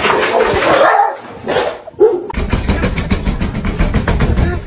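A dog barking.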